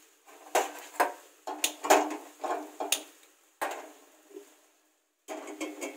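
A gas stove burner being lit with a spark lighter: a run of sharp clicks and knocks, each followed by a short rush of hiss, until the burner catches.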